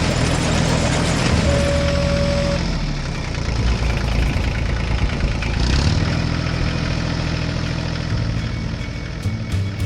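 Tractor engine running, its note dropping about three seconds in and picking up again around six seconds.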